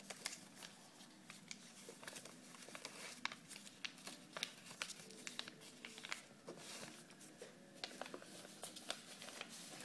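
Sheets of paper being refolded and creased by hand: soft crinkling with many small, crisp crackles scattered through.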